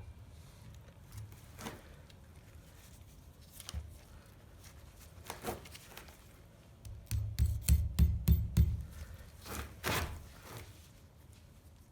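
Hand-tool work on the steel ties around the ends of an inner CV joint's rubber boot: scattered clicks and metal taps, then a quick run of sharp clicks with dull knocks about seven seconds in and another pair near the end.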